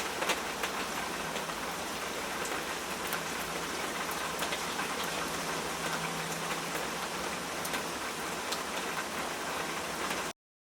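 Steady rain falling, with many individual drops ticking through the hiss. It cuts off abruptly into total silence near the end.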